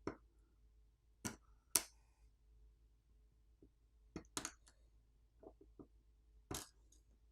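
Short, sharp clicks of a pry tool popping a smartphone's flex-cable connectors off the board, scattered irregularly: two a little over a second in, a quick pair about four seconds in, softer ones after, and another near the end.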